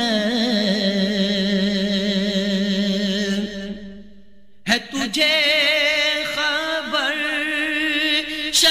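A man's voice singing an Urdu naat in long held notes with a wavering vibrato. The note fades out a little over three seconds in, there is a pause of about a second, then he takes up the next line in long held notes again.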